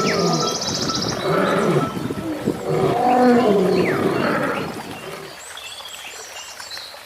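A large animal calling repeatedly: several low, drawn-out calls that rise and fall in pitch, fading out about five seconds in, followed by faint short high chirps.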